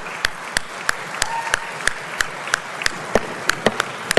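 Chamber full of legislators applauding: a steady wash of clapping, with one near clapper striking evenly about three times a second.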